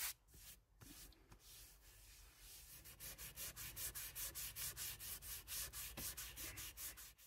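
Hand sanding a wooden guitar body with a sanding block: quick back-and-forth scraping strokes of sandpaper on wood, about four a second, softer at first and louder from about three seconds in.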